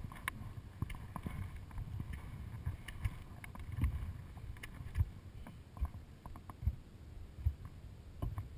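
Low rumble of wind and handling on a body-worn action camera's microphone as a ski tourer moves over snow, broken by irregular thumps and clicks from the skier's strides.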